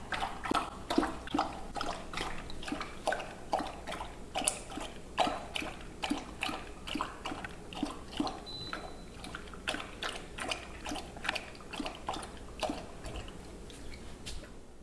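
Puppy lapping water from a plastic bowl: a steady run of wet laps, about three a second.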